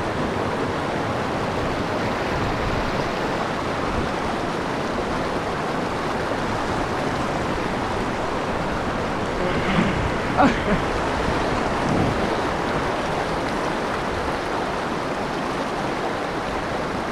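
Mountain stream rushing steadily over its bed, with a few short louder sounds about ten seconds in.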